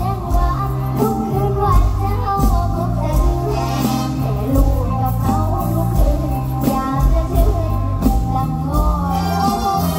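Live mor lam music played loud through a stage sound system: a singer's melody over a band with a steady bass beat.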